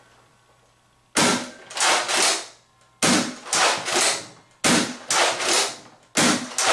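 Nerf Ultra Three dart blaster fired four times, starting about a second in and then roughly every second and a half. Each shot is a quick cluster of two or three sharp clacks: the blaster priming and firing, and the dart striking the cloth-lined cardboard box target.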